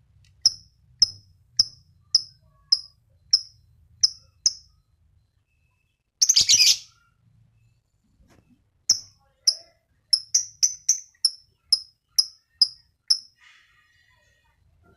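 Lovebird calling: a run of sharp, high single chirps about two a second, a short dense chattering burst (the 'ngekek' call) about six seconds in, then another run of chirps that comes faster for a while and stops about thirteen seconds in.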